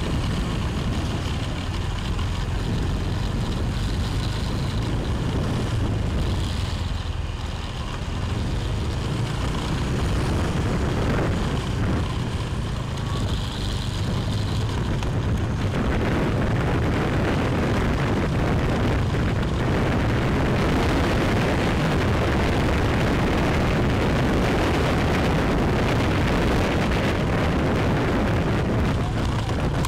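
Wind rumbling over the microphone of a moving motorbike, with the motorbike's engine and traffic noise under it. The rush grows louder and fuller about halfway through.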